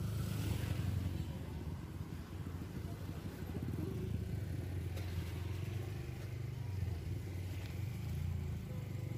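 Motor scooter traffic on a busy street: a steady low engine hum from motorbikes passing close by.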